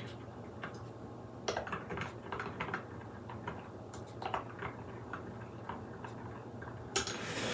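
Spoon stirring a liquid seasoning mixture in a small glass, clinking and tapping against the glass in light, irregular ticks, a few a second.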